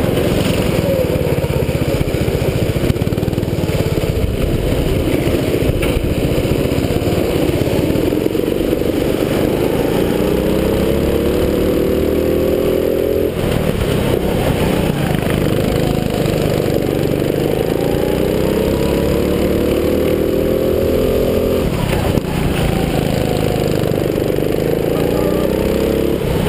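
270cc four-stroke go-kart engine running under throttle. Its pitch rises steadily as the kart accelerates, then drops sharply when the throttle comes off, about 13 and 22 seconds in, before climbing again.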